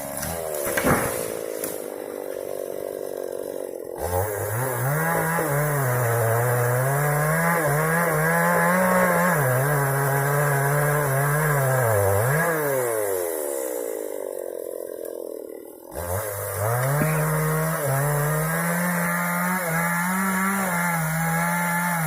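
Two-stroke chainsaw cutting wood at high revs, its engine pitch sagging and recovering under the load of the cut. It eases off for a couple of seconds about two-thirds through, then revs sharply back up.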